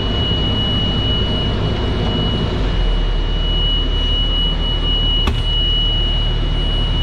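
A fire truck's diesel engine idling, heard from inside the cab, with a steady high-pitched warning tone held throughout: the dash alarm for check engine and low coolant. A single click about five seconds in.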